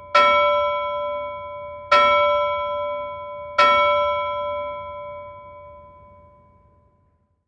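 A bell struck three times, about a second and three quarters apart, each stroke ringing on with a clear, steady tone; the last stroke fades away over some three seconds.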